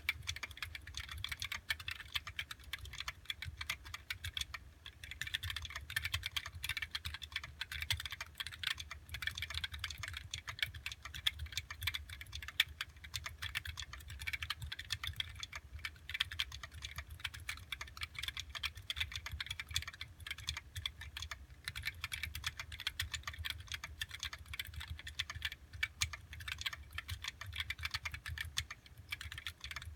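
Continuous fast typing on an OLKB Planck 40% ortholinear mechanical keyboard with linear Gateron Yellow switches on 78g springs and JTK PoW keycaps: a dense run of keystroke clacks that starts at once, with a couple of brief pauses.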